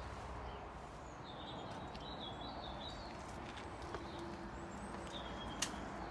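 Outdoor ambience with a small songbird chirping in short wavering calls, a few sharp clicks, the loudest about five and a half seconds in, and a faint steady low hum starting near the middle.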